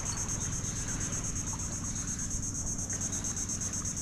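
Steady, high-pitched insect chirring pulsing rapidly, over a low steady rumble.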